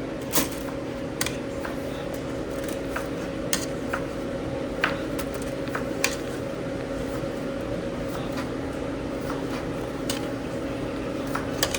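Scattered sharp knocks and clatters of kitchen work, utensils against boards and pans, coming at irregular intervals over a steady fan hum.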